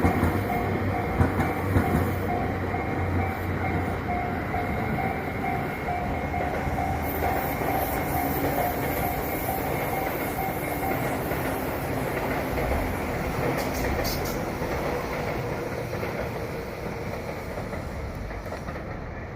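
Tobu Skytree Line train passing, its wheels clacking on the rails over a steady running rumble that slowly fades toward the end. A repeating pulsing tone runs with it and stops about eleven seconds in.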